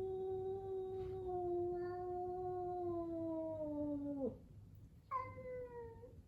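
A cat's long, drawn-out yowl, a siren-like wail that sinks slowly in pitch and breaks off with a downward drop about four seconds in. A second, shorter yowl starts higher about a second later and falls away.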